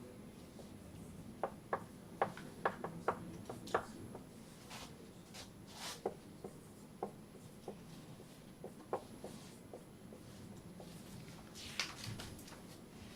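Faint, light taps and clicks: a quick run of them about one to four seconds in, then scattered single ones, with a couple of soft rustles.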